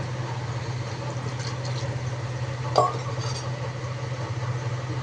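A metal utensil stirring and clinking against a cooking pan, with one sharper clink nearly three seconds in, over a steady low hum.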